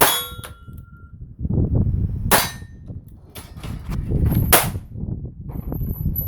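Trapdoor rifle shots with a steel target ringing. A sharp shot with a ringing clang comes right at the start, and two more sharp reports follow about two and four and a half seconds in.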